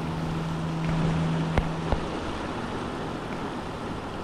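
Canal water rushing steadily, running high after heavy rain, with wind on the microphone. A steady low hum stops about two seconds in, and two sharp clicks come close together midway.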